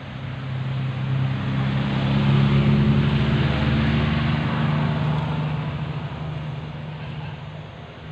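A motor vehicle driving past with its engine running, growing louder to a peak about three seconds in and then fading away.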